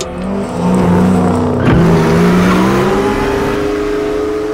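Car engine sound effect running and revving, with a sharp whoosh or hit about two seconds in and the engine pitch climbing near the end.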